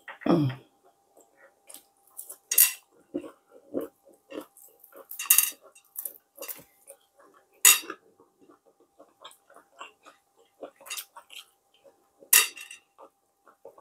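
Crisp fried tilapia being picked apart by hand to take out the bones: scattered crackling and snapping of skin, fins and bones, with several sharp clicks. A short falling hum from the eater comes right at the start.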